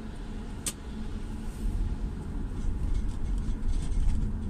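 A car driving on a wet road, heard from inside the cabin: a steady low rumble of engine and tyres with a faint hiss above it. A single short click comes about a second in.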